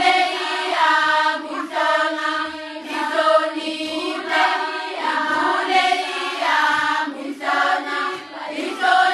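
A group of girls singing a Zulu traditional song together, in short repeated phrases of about a second each over a steady low sung note.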